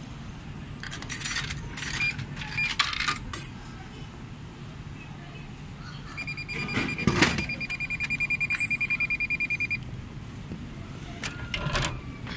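Drink vending machine: coins clatter into the slot, then the machine beeps rapidly for a few seconds while a can drops with a heavy thud. Near the end the plastic dispensing flap rattles as the can is taken out.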